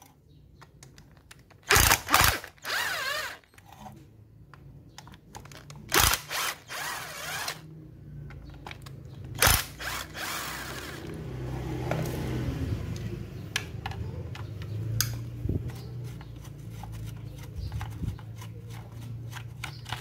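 A screwdriver ratcheting as it backs screws out of a handheld electric circular saw's housing: short runs of quick ratchet clicks mixed with knocks and taps of the tool. A low steady hum runs through the second half.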